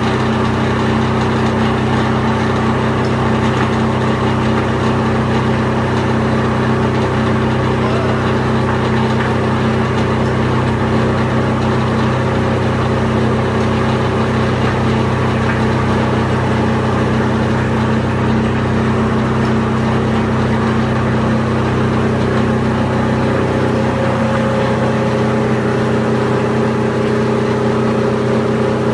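Plastic film agglomerator (densifier) for PP/PE film running: a loud, steady machine hum with several constant low tones over a dense rushing noise from its spinning cutter drum.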